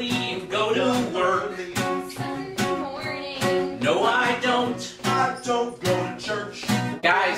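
Music: a voice singing over a strummed acoustic guitar.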